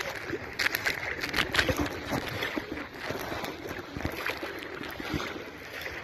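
Legs wading through shallow seawater: irregular sloshing and splashing, busiest in the first couple of seconds.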